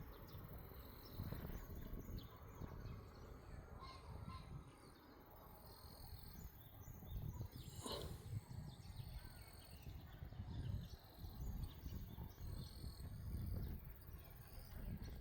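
Wind gusting across the microphone in an irregular low rumble, with birds chirping and calling faintly in the background. One brief, louder sound comes about halfway through.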